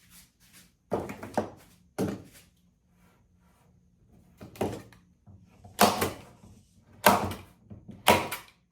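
A series of sharp knocks and thunks, about eight of them at irregular intervals roughly a second apart, growing louder in the second half, with a short ring after each in a small room.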